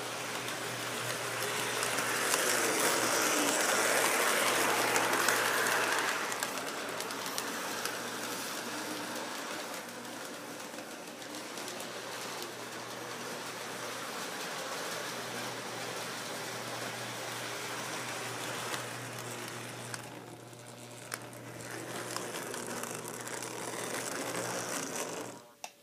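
Three-rail model train running on its track: a model diesel locomotive pulling model passenger cars, with a steady rattle of wheels on rail and a constant low hum. The sound rises and falls as the train circles, grows louder as it comes close, then cuts off suddenly near the end.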